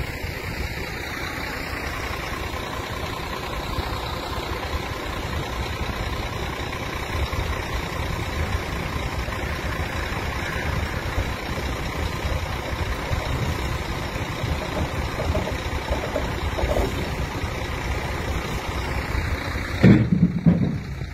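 Heavy diesel lorry engine idling steadily. Near the end there is a brief louder low burst.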